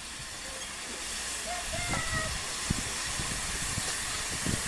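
Steam hissing from GWR-design '1500' Class 0-6-0 pannier tank locomotive No. 1501 as it approaches slowly, the hiss growing louder, with a few low thumps.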